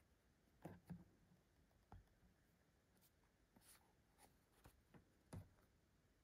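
Faint, irregular taps and scrapes of a small cardboard product box being handled, with a soft knock near the end as the box is set down on the table.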